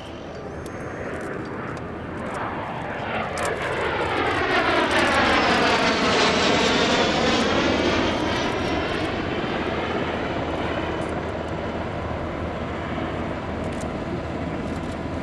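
An airplane flying past at an air show display. Its engine noise builds to a peak about five to seven seconds in, with a sweeping, phasing whoosh as it passes, then slowly fades.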